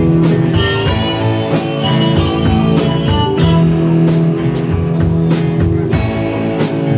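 A band playing a rock song: guitar over drums, with cymbal strikes about once a second.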